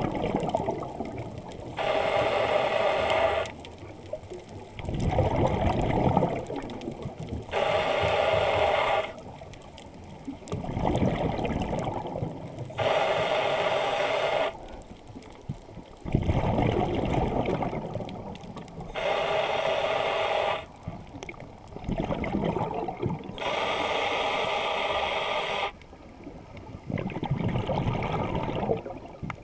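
Scuba diver breathing through a regulator underwater: a hissing inhale alternates with a low gurgling rush of exhaled bubbles, one breath about every five to six seconds.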